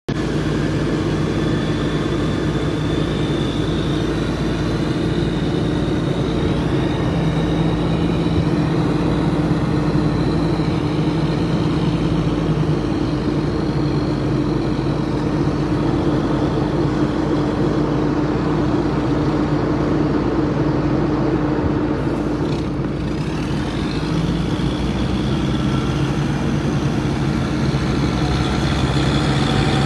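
Truck engine running steadily, with a high wavering whine above it and a short dip in level about two-thirds of the way through.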